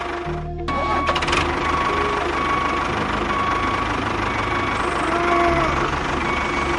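Tractor engine idling steadily, with a brief dip in the sound just under a second in.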